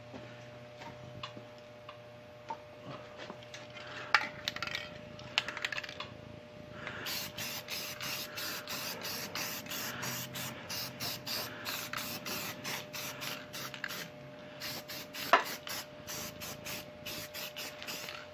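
Aerosol spray paint can spraying in a quick succession of short hissing bursts from about seven seconds in, with a few sharp clicks before and one loud click near the end. A faint steady hum runs underneath.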